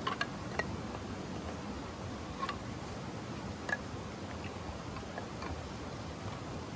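Steady rain falling, with a handful of sharp, irregular ticks spread through it.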